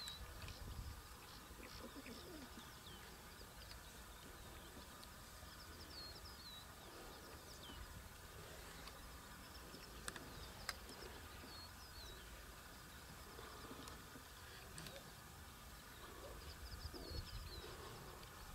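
Faint bush ambience with wild birds calling: short, high, downward-slurring chirps in scattered small groups over a low rumble, and two sharp clicks a little past halfway.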